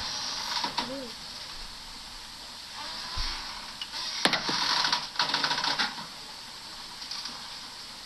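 Top-load washing machine spinning out at the end of its cycle, with an uneven mechanical whir and clatter. A sharp click comes about four seconds in, followed by a louder stretch lasting a couple of seconds.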